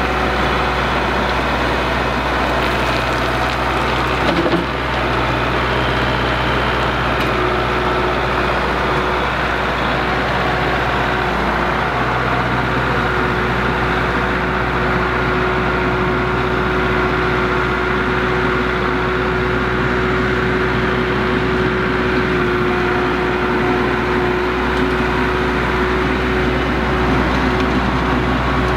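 Kubota MX5400 tractor's four-cylinder diesel engine running steadily while it grades dirt with its loader and rear land plane, with a brief knock about four and a half seconds in.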